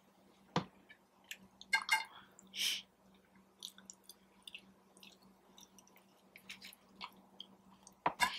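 Eating crunchy tacos and nacho chips: scattered crunches, snaps and mouth clicks of chewing, with a sharper knock about half a second in. A faint steady low hum sits underneath.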